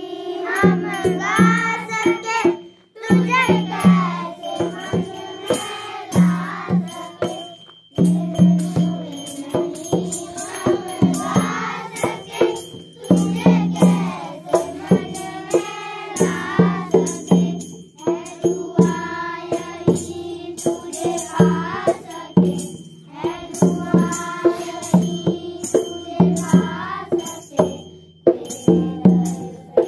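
Children's chorus singing a morning prayer song in unison, with a tambourine shaken to the beat and short breaks between lines.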